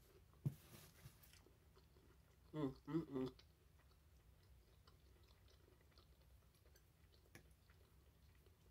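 Quiet close-up eating sounds: soft chewing and mouth noises, with a short hummed "mm" about two and a half seconds in. After that come faint clicks of a metal fork twirling pasta in a ceramic bowl.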